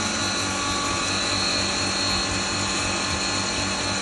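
Electric double-chamber maize grinder running steadily while grinding maize kernels: a constant motor hum under an even, dense whirr from the grinding chambers.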